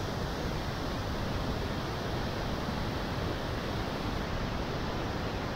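Vernal Fall pouring over its granite brink at close range: a steady, unbroken rush of falling water.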